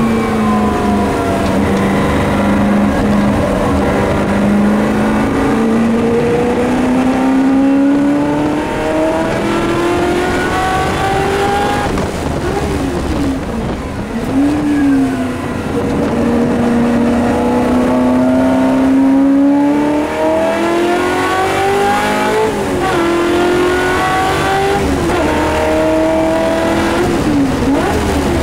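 Shelby Mustang GT350R's 289 V8 at full racing load, heard from inside the cabin. The engine note climbs steadily for about twelve seconds, then makes a few quick dips and rebounds in pitch as gears change. It climbs again and changes several more times near the end.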